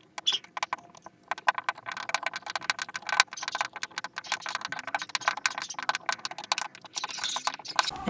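Wood screw being driven by hand into a softwood block with the Phillips screwdriver bit of a Leatherman Surge multitool: a dense run of rapid crackling clicks as the threads cut into the wood under each turn.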